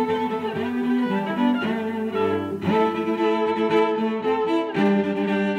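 Background music of bowed strings, violin and cello, playing sustained chords. The chord changes about two and a half seconds in and again near the end.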